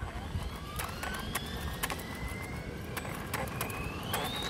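Electric RC short-course truck driving on concrete. Its motor whine climbs steadily in pitch as it speeds up, then climbs again near the end, over tyre rumble and scattered sharp ticks.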